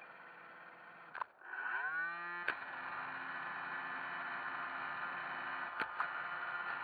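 iRobot Roomba 560 robot vacuum's motors spinning up with a rising whine about a second and a half in, then running with a steady whir. A few sharp clicks come over the running sound.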